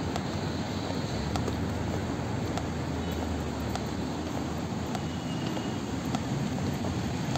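Steady outdoor city traffic ambience: a low, even rumble of road traffic, with faint sharp ticks about every second.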